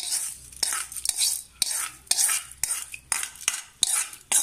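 Metal spoon scraping the inside of a small metal pan in repeated strokes, about two a second, pushing fried tempering out into a pot of curry.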